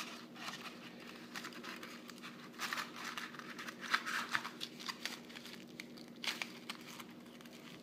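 Aluminium foil crinkling and rustling in irregular bursts as it is wrapped around a spoon's handle.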